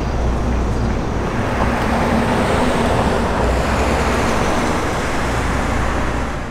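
Steady road traffic noise with a low rumble, swelling as a vehicle passes in the middle.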